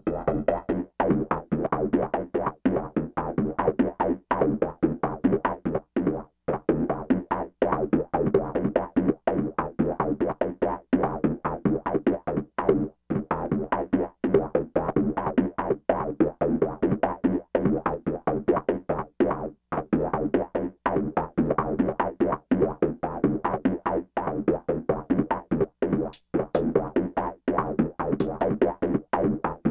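Background music with a fast, choppy rhythm of short repeated notes.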